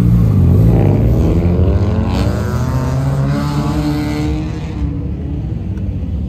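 Passing cars' engines accelerating past, one engine note climbing in pitch as it pulls away, then dying down about five seconds in.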